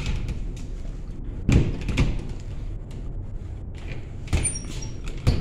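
A locked door being tried: the knob is worked and the door is pushed against its latch, giving several sharp knocks and thumps, about a second and a half and two seconds in and twice more near the end, over a steady low hum.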